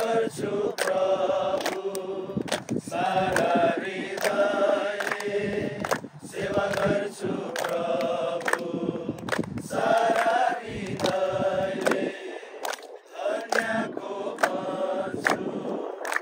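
A group of men singing a song together while clapping their hands in time, about two claps a second.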